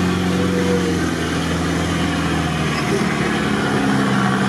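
Off-road 4x4's engine running at a steady low speed, heard from inside its own cab as it creeps along a muddy track.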